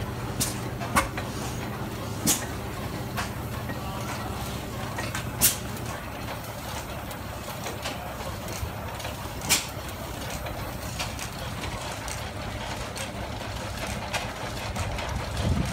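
Antique single-cylinder stationary engines running, among them a 1905 International Harvester Famous 10 hp. Sharp exhaust pops come at uneven spacing every few seconds, typical of hit-and-miss governing, the loudest about five and a half and nine and a half seconds in, over a steady low drone.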